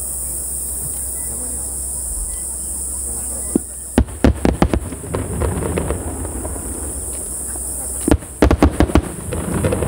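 Underwater starmine fireworks bursting at the water's surface. About four seconds in comes a quick string of sharp bangs that trails off into crackling, and about eight seconds in a second string of bangs, again followed by crackle.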